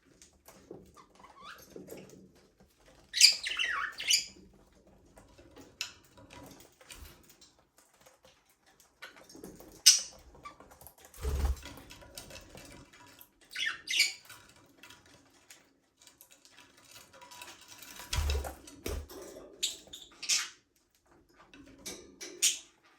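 Budgerigars chirping and chattering in short, high-pitched bursts, with scattered small clicks between calls and two brief low thumps.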